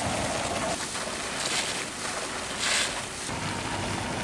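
Wind rumbling on the microphone over open pond water, with two short bursts of noise about a second apart.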